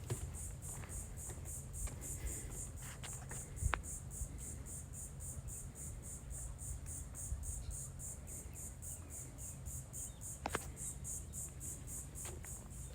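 An insect calling steadily in a high-pitched, even pulse, about three pulses a second, over a low rumble with a couple of sharp clicks from walking.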